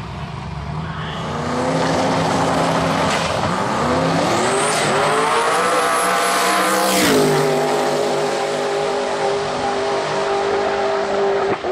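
Twin-turbo Holden Camira drag car engine revving and launching hard. Its pitch climbs, drops suddenly at a gear change about seven seconds in, then holds steady as the car pulls away down the strip.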